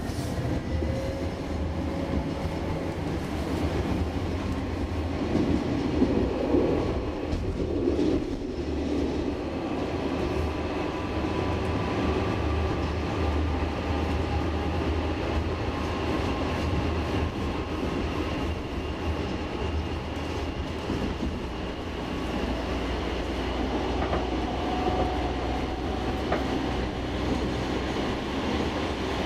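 A32 light-rail tram running on the track, heard from inside at the front: a steady low rumble of wheels on rail, with faint whining tones that drift slowly in pitch. The rumble grows louder and rougher for a few seconds around six to eight seconds in.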